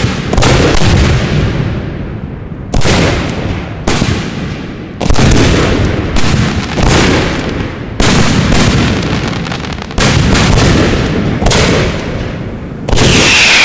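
Aerial ball shells of a large fireworks display going off in quick succession: about a dozen loud bangs, one every second or so, each trailing off in rumbling echo. Near the end a louder burst carries a whistling tone that slides slightly down.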